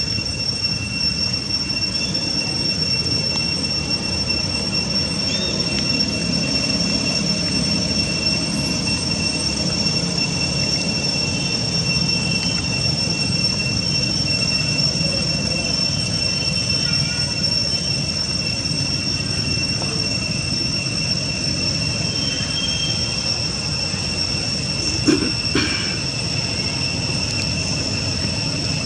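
A steady, unbroken high-pitched insect drone at two held pitches, over a low rumbling background, with a single brief knock about 25 seconds in.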